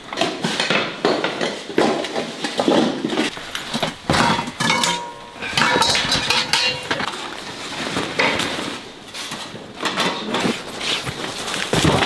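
Stainless steel pots, steamer pans and colanders clattering and clinking as they are handled and set down. There are irregular knocks throughout, and a short metallic ring about five seconds in.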